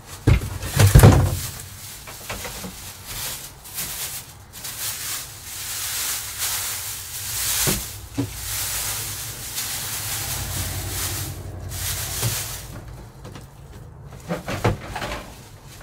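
Plastic wrap rustling and crinkling as a wrapped roof vent fan is handled, with a few knocks about a second in as the fan is set down on a table.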